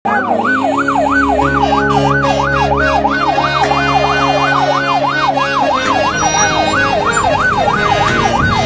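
Electronic siren wailing in a fast yelp, its pitch rising and falling about three times a second. A steady low hum lies beneath it and stops about two-thirds of the way through.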